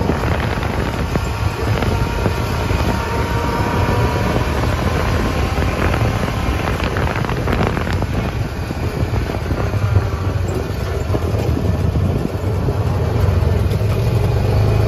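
Honda side-by-side UTV driving along a dirt and gravel farm lane: its engine runs steadily with wind buffeting the microphone, and there are a few short knocks and rattles about six to seven seconds in.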